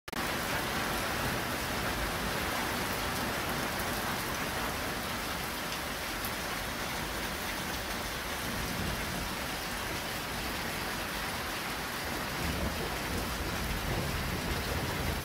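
Heavy thunderstorm downpour: rain pouring steadily onto paving and garden plants, with water already pooling.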